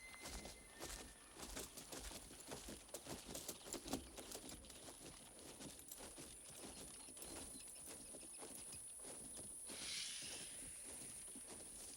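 Horses walking on a forest floor: soft, irregular hoof falls with rustling, over a faint steady high whine. A brief rustling swish comes about ten seconds in.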